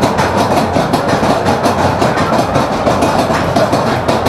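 Mine-train roller coaster train clattering on its steel track during the ride, a continuous rattle of rapid, closely spaced clicks.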